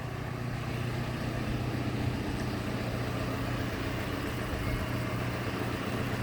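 Large John Deere machine's engine running steadily with an even, low hum.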